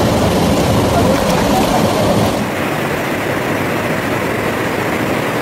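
Fast-flowing flash floodwater, thick with mud, rushing down a street in a steady, loud wash of noise. About two and a half seconds in, the sound turns duller, losing its hiss.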